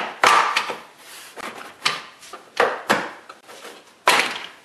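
Honda Odyssey's plastic rear cargo-sill trim panel being pulled up, its retaining clips popping loose in a series of sharp snaps, with plastic rubbing and scraping in between.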